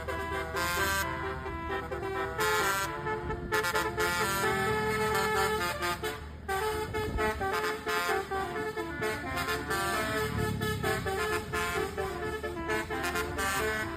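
Basuri multi-tone bus air horn playing a telolet tune: a quick run of stepped horn notes, several pitches at once, with a low rumble underneath.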